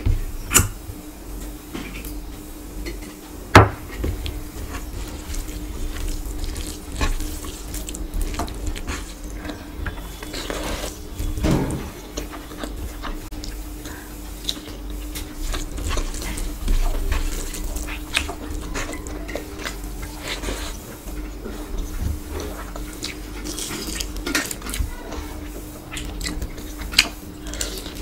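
Eating sounds close to the microphone: fingers mixing rice and mutton curry on a tray and dipping into steel bowls of gravy, with biting and chewing. Scattered sharp clicks and knocks run through it, the loudest a few seconds in. A steady low hum runs underneath.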